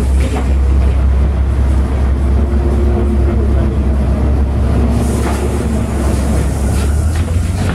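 City bus in motion, heard from inside the passenger cabin: a steady, loud low rumble of engine and road noise, with a faint steady hum above it.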